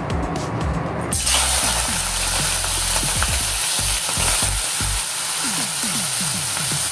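Raw prawns going into hot oil in a kadai: a sudden sizzle starts about a second in and carries on as a steady frying hiss.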